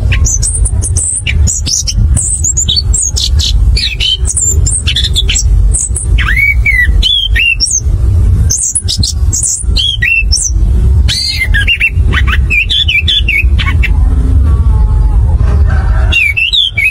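Chestnut-capped thrush (anis kembang) singing a varied run of short whistled slides, chirps and high thin notes in quick phrases, over a steady low rumble.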